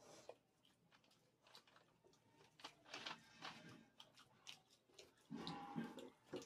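Quiet eating by hand: faint clicks and crunches of cooked crab shell being picked apart and chewed. A louder stretch of noise comes about five seconds in.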